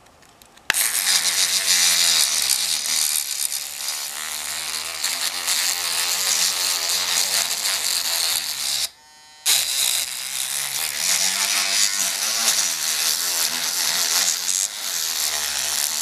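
An AA-battery electric toothbrush converted into an electric lock pick, its flattened metal tip buzzing in the keyway of a Defiant deadbolt lock cylinder as it vibrates against the pins to pick the lock. It switches on abruptly about a second in, cuts out for about half a second near the middle, then runs again.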